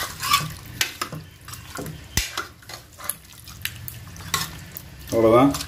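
A spoon stirring the cooked mutton gravy in a pressure cooker pot, with repeated metal clinks and scrapes and one sharper knock about two seconds in. A short burst of voice comes near the end.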